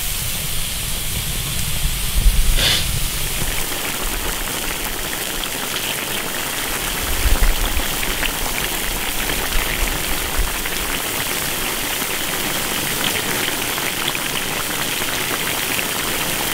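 Wok of river snails boiling in a spicy beer-based sauce: a steady bubbling hiss. A low rumble comes and goes in the first part, loudest about 2 and 7 seconds in, with one brief sharp knock near 3 seconds.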